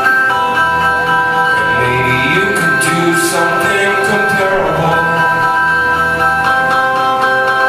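Live music on a keyboard holding steady sustained chords, with a wavering melody line coming in over them in the middle.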